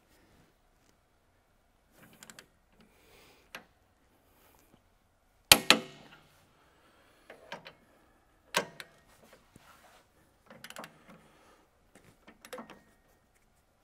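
Click-type torque wrench tightening shear-bar bolts on a forage harvester cutterhead: sharp metallic clicks, the loudest about five and a half seconds in and another near eight and a half, as the wrench reaches its set torque of 175. Softer ratcheting and metal tool knocks come between them.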